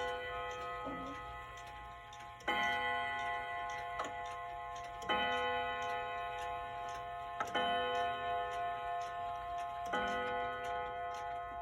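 Wind-up wall clock striking the hour: slow single strikes about every two and a half seconds, four of them, each ringing out for a long time and overlapping the last, with the movement ticking steadily underneath.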